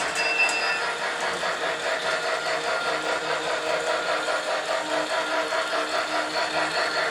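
Lionel G-gauge Polar Express toy locomotive running on its track, its sound unit playing steady rhythmic steam chuffing over the motor's running noise. A few quick ringing strikes, like the train's bell, sound in the first second.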